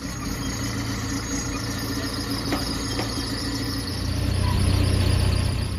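Engine of a small aircraft tow tractor running steadily as it pulls a jet trainer, getting louder about four seconds in, with two faint clicks midway.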